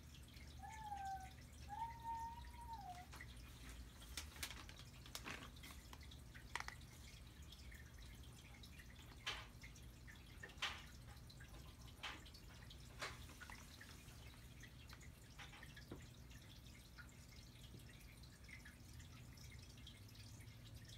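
Near-silent room tone with a steady low hum. In the first three seconds come a few faint, short whistle-like calls that rise and fall in pitch, then scattered faint clicks and ticks.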